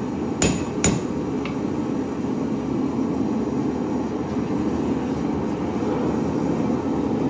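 Two sharp ringing cross-peen hammer blows on hot steel at the anvil within the first second, and a lighter tap soon after. Under them and after, the steady roar of a gas forge burner.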